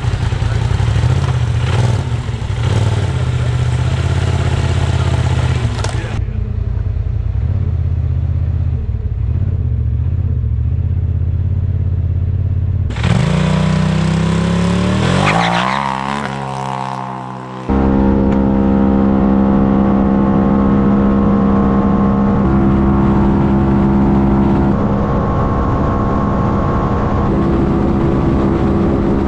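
2019 Polaris RZR XP Turbo's turbocharged engine idling in the staging lanes, then its pitch sweeping up and down. From a little past halfway it runs flat out on a drag-strip pass, the engine note held nearly steady as the CVT lets the speed climb.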